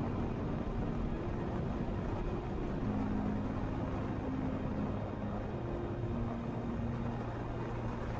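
Jeep driving along a dirt forest road: steady engine and tyre noise.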